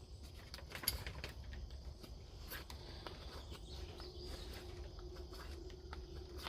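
A pocket knife blade shaving a cedar stick: quiet, irregular little cuts, scrapes and clicks as the wood is whittled.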